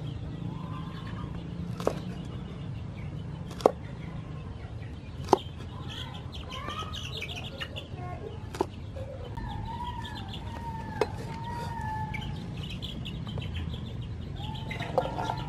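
A cleaver chops through long beans into a wooden chopping block: about five sharp chops a couple of seconds apart. Birds, likely chickens, call in the background.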